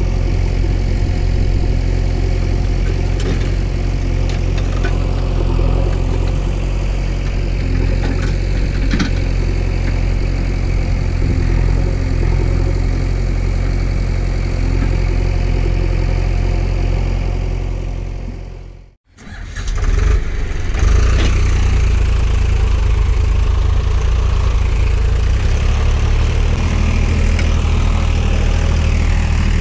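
Steady engine running with a deep hum, a heavy-vehicle engine sound effect dubbed over toy vehicles. About two-thirds of the way through it fades out to nothing and comes straight back in, then runs on steadily.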